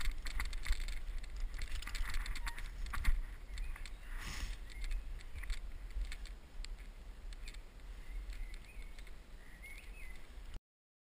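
Mongoose XR-350 alloy mountain bike rattling and clicking as it rolls over a rough dirt trail, under a steady low rumble. The sound cuts off suddenly near the end.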